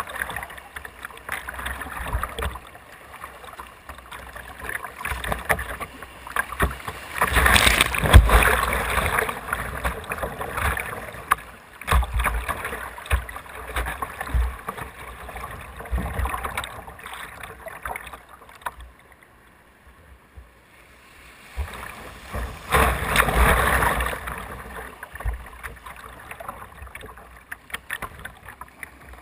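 Whitewater rushing and splashing around a kayak's bow as it runs rapids, heard close up from a camera on the deck. It surges loudest about seven to nine seconds in and again around twenty-three seconds, and eases as the boat reaches calmer water near the end.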